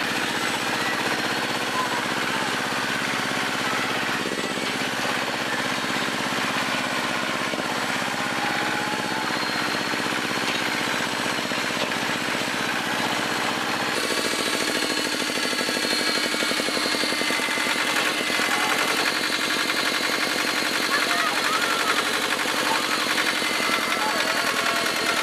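Tractor engine running steadily while pulling a trailer, heard from the driver's seat. The sound changes abruptly about halfway through.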